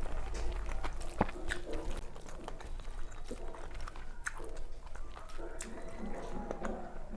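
Close-miked chewing and wet mouth sounds of someone eating a meal of rice, dal and vegetable dishes, with many small clicks and smacks.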